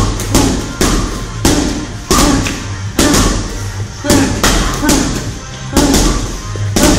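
Music track with a steady, heavy beat over a continuous bass, a stroke about every half second.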